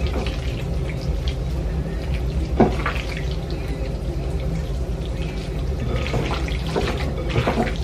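Wet squelching and squishing of hands kneading raw chicken pieces in a thick marinade in a glass bowl, irregular small smacks with a louder one about two and a half seconds in, over a steady low hum.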